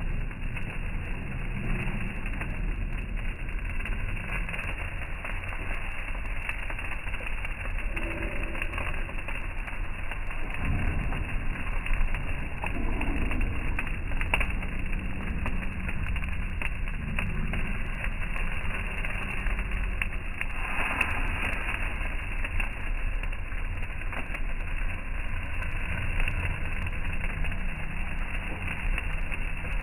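Thin slices of Hanwoo beef brisket (chadolbaegi) sizzling steadily as they cook, a constant crackle of spitting fat with scattered sharper pops.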